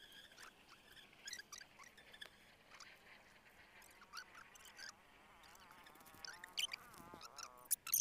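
Faint outdoor ambience of small animals calling: scattered high chirps, with a rapid wavy trill in the second half. A few sharp clicks near the end are the loudest sounds.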